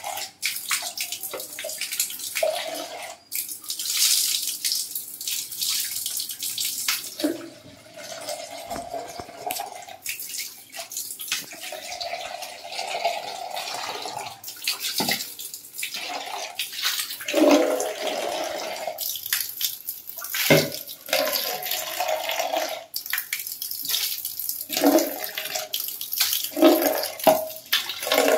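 A stream of tap water pouring into a plastic mug and splashing onto the tiled floor, its level rising and falling as the mug is moved in and out of the stream.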